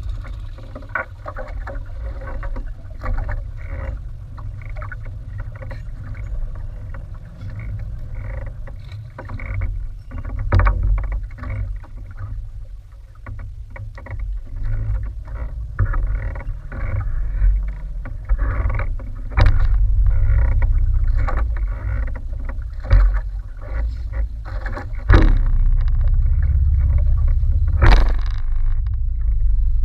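Small wooden outrigger canoe (bangka) rocking on the open sea: a low, uneven rumble of wind and water against the hull, with irregular knocks and clicks from the boat and the handline being worked. A few sharper knocks fall in the second half.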